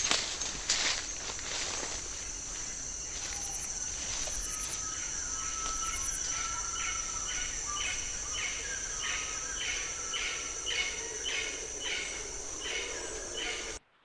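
Tropical forest field recording: a steady high insect buzz, with an insect call pulsing about twice a second, over a few footsteps in the first couple of seconds. It cuts off suddenly near the end.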